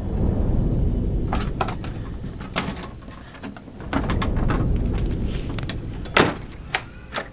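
Low rumbling drone of a horror soundtrack with scattered clicks, then three sharp knocks on a door near the end.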